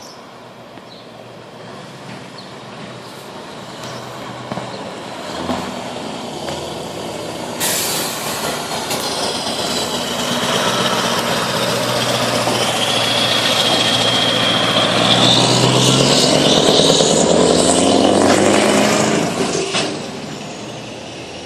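Scania R620 truck's V8 diesel engine getting steadily louder as it pulls up and away, its pitch rising under acceleration, then dropping off suddenly near the end. A sudden hiss of air cuts in about seven and a half seconds in.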